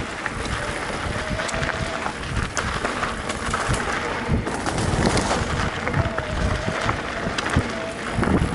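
Wind rushing over the microphone of a mountain bike rider moving along a dirt trail, with tyre noise and irregular clicks and knocks from the bike rattling over bumps.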